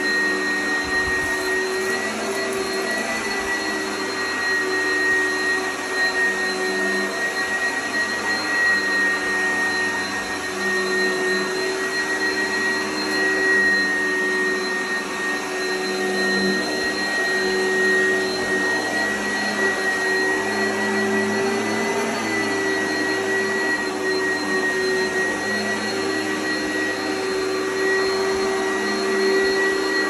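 Oreck XL upright vacuum cleaner running on carpet, with a steady high motor whine over crunchy suction noise. The level swells slightly as it is pushed back and forth.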